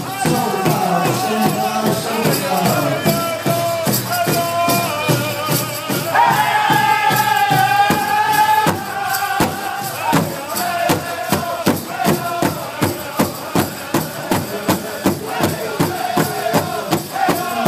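A powwow drum group beating a large shared drum in a steady rhythm of about two strokes a second while the men sing in the high powwow style. About six seconds in, the voices rise to a long high held note.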